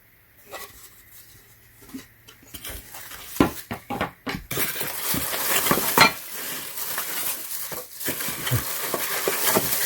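Flat-pack furniture parts being handled: a few light knocks and clicks, then from about four and a half seconds in a continuous crinkling rustle with metallic clinks.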